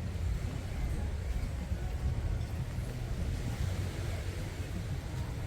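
Wind buffeting the microphone, a steady low rumble that rises and falls unevenly.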